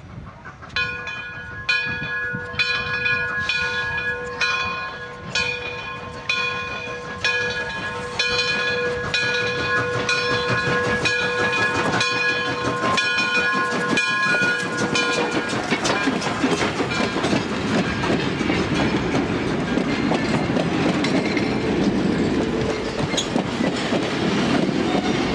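Steam locomotive bell on Frisco 1630, a 2-10-0 Decapod, ringing steadily about once a second as the engine approaches. The bell stops about 15 seconds in, and the locomotive and its cars roll past with a steady rumble of wheels on the rails.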